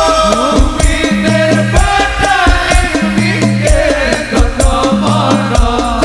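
Instrumental break in an Islamic sholawat song. Quick, steady hand-percussion strokes with a shaker-like rattle play over a heavy, repeating bass figure and a winding melodic lead.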